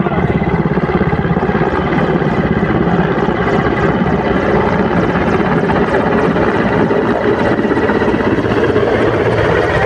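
Mil Mi-17 helicopter flying low on its approach to land, a loud, steady, fast chopping of the rotor over the turbine engines.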